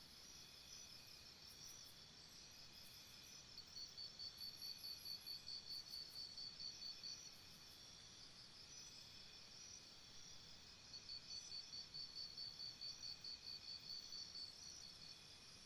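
A faint chorus of crickets, several chirping at different pitches. The nearest one chirps about four times a second in two spells of a few seconds, one starting about four seconds in and one about eleven seconds in.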